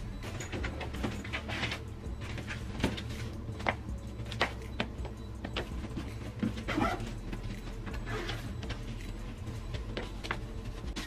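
Stiletto heels tapping and clicking on a hard terrazzo floor while high-heeled shoes are changed, in scattered sharp taps with some rustling between them, over a steady low hum.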